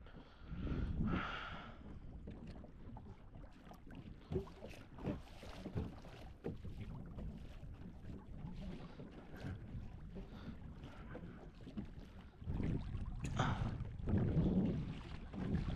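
Wind buffeting the microphone and water lapping around a small canoe, with scattered light knocks. The low rumble swells louder in gusts near the end.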